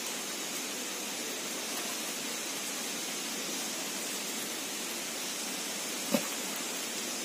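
Steady hiss of outdoor background noise, with one sharp click about six seconds in.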